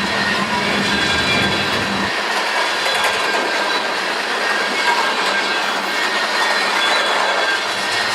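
Freight train cars rolling past on the rails: steady wheel-on-rail noise with some high wheel squeal, the low rumble dropping away about two seconds in.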